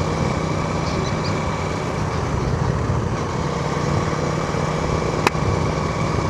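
Steady engine hum and road noise from a moving vehicle, with a single sharp click about five seconds in.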